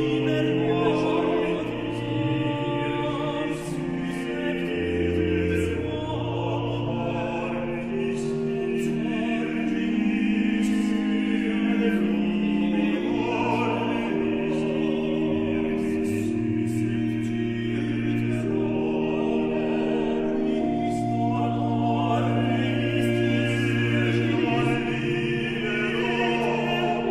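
Baroque sacred music: singing voices with a period orchestra and continuo, moving in long held chords over a slow bass line.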